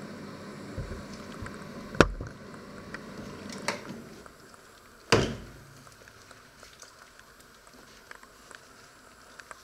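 Microwave oven running with a steady hum, then a sharp click about two seconds in as its door is opened mid-cycle, and the running sound stops. A knock follows, and the loudest one comes about five seconds in, with small taps after.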